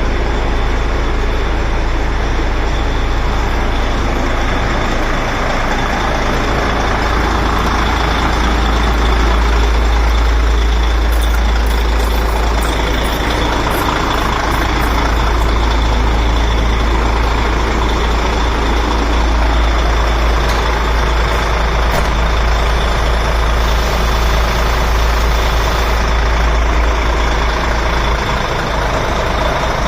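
Heavy truck's diesel engine running steadily with a deep rumble and a thin high whine over it.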